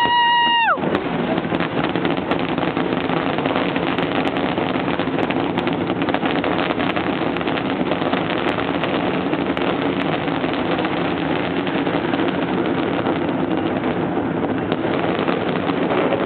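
Dense, steady crackling din of a fireworks finale. A horn blows a steady tone that stops just under a second in, and several horns at different pitches start up near the end, typical of boats on the river sounding their horns.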